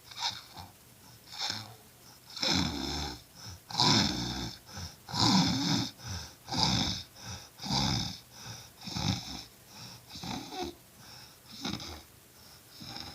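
Snoring in a steady rhythm: a rasping snore about every second and a half, stronger in the first half and fading somewhat toward the end.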